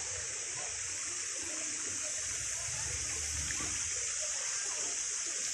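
Steady rushing of a shallow mountain stream: an even hiss that does not let up.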